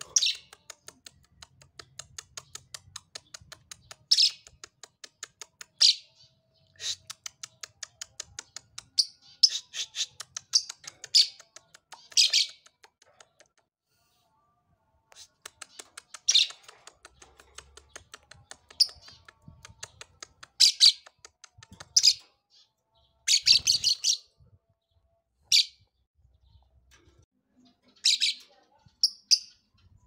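Soft blue mutation lovebird chirping in fast runs of high chirps, about four a second, broken every few seconds by louder shrill calls, with a pause of about two seconds around the middle.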